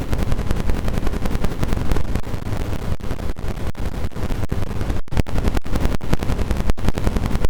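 Android alarm sound edited and distorted into dense, harsh crackling noise with no melody left, stuttering rapidly. From about five seconds in it is broken by several short, sudden cut-outs.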